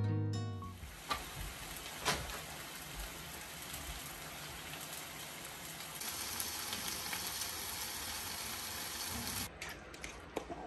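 Bacon and hash browns frying in a skillet, a steady sizzle with a few light clicks. Near the end the sizzle cuts off and is followed by a few clicks.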